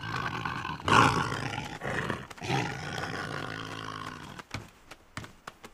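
A large cartoon animal's growling roar, a sound effect, lasting about four and a half seconds and loudest about a second in, then fading away.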